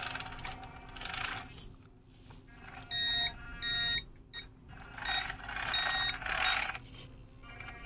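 RC Linde H40D forklift model driving over the whine of its electric drive motor, with its electronic warning beeper sounding: two beeps about three seconds in, then a quicker cluster of beeps a couple of seconds later.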